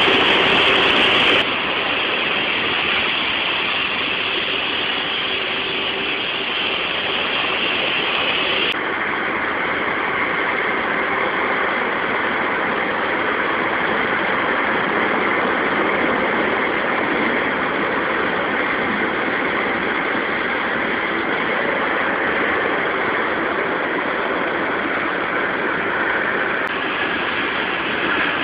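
High-pressure washer spraying a concrete floor: a loud, steady hiss and rush of the water jet with the machine running beneath it. The hiss dulls somewhat about nine seconds in and brightens again near the end.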